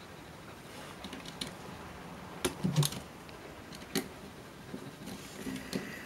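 Light clicks and taps of the small plastic and metal parts of a Canon PowerShot S2 IS camera being handled and pried apart by hand. The clicks are scattered, with a short cluster about two and a half seconds in and a sharp single click about four seconds in.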